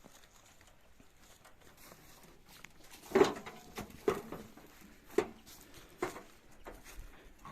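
A series of about five sharp knocks, irregular and roughly a second apart, starting about three seconds in, each with a brief ringing note.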